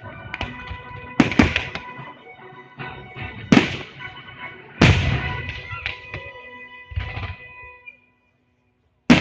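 Fireworks shells bursting with sharp bangs every second or two, over steady music. The sound cuts out completely for about a second near the end, then another loud bang comes.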